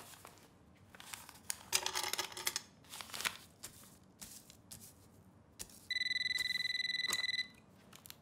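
Rustling and light clicks of small things being handled. About six seconds in comes a single electronic ring from a telephone or door intercom: one steady buzzing tone lasting about a second and a half, then cutting off.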